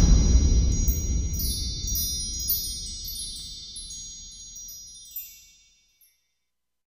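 Logo sting sound effect: many high, shimmering chime tones over a low rumble, dying away and ending about five and a half seconds in.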